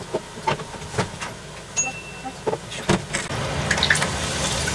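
Karaage chicken deep-frying in hot olive oil: scattered crackles and pops, then from about three seconds in a louder, steady sizzle as more battered chicken pieces are dropped into the oil.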